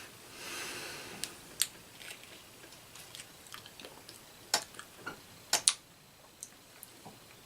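Faint scattered clicks and light taps from handling an opened sauce packet. A soft rustle comes near the start, and a few sharper clicks follow, the loudest pair about five and a half seconds in.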